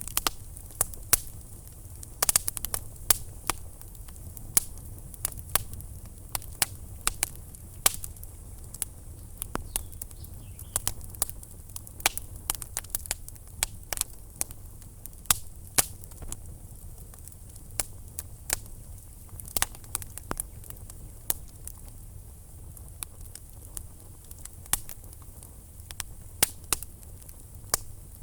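Wood fire burning in a fireplace: irregular sharp crackles and pops, several a second, over a steady low rumble of the flames.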